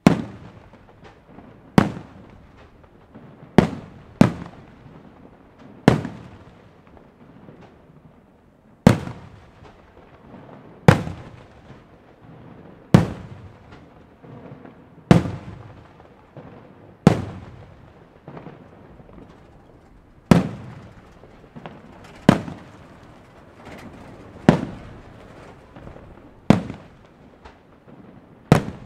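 Aerial firework shells bursting one after another, a sharp bang about every two seconds, each trailing off in a rolling echo.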